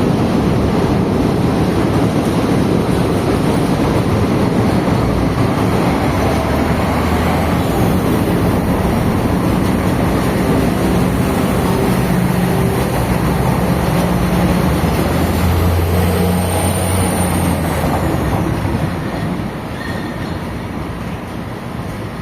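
Light-rail diesel railcar pulling away from a station: a loud, steady running rumble with a pitched drone that strengthens midway, then the sound falls off a few seconds before the end as the train draws away.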